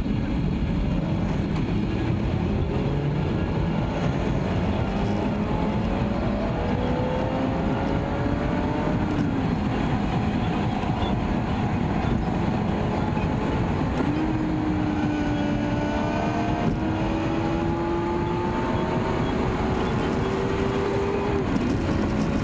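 Car engine and tyre noise heard from inside the cabin while driving, steady throughout. From about two-thirds of the way through, the engine's tone climbs slowly in pitch, then falls back sharply shortly before the end, as it does when an upshift follows a climb in engine speed.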